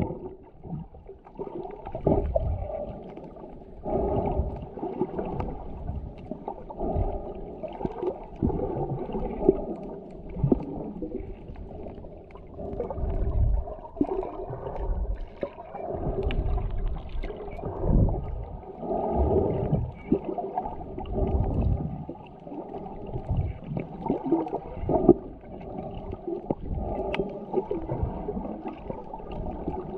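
Muffled underwater water noise picked up by a camera held underwater, swelling and fading every couple of seconds as the swimmer moves through the water.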